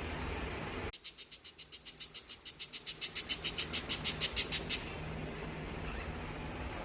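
A parrot's rapid series of short, shrill calls, about eight a second, starting about a second in, growing louder and stopping after about four seconds.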